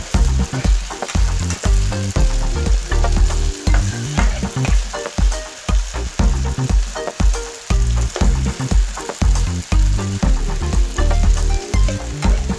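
Chicken feet sizzling in oil in a nonstick frying pan while a spatula stirs and tosses them, scraping and knocking against the pan in regular strokes about twice a second.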